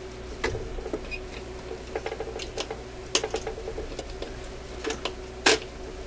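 Irregular small metallic clicks and scrapes as a hand tool works at a retaining clip on the pivot shaft of a record-changer mechanism, with a sharper click about five and a half seconds in. A steady low hum runs underneath.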